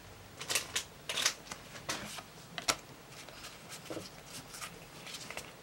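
Pokémon trading cards handled in the hands: an irregular run of short flicks and rustles as the cards are slid out of a freshly opened booster pack and fanned out. The loudest flick comes about two and a half seconds in.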